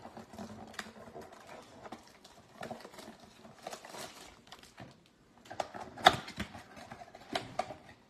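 Crinkling clear plastic wrapper and the rustle and tap of trading cards and a cardboard blaster box being handled on a table, with the sharpest rustles and taps about six seconds in.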